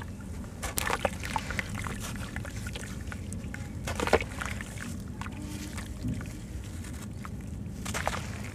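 Soft sand-cement chunks crumbled by hand under water in a plastic tub: wet sloshing and splashing with scattered gritty crunches, the sharpest about four seconds in.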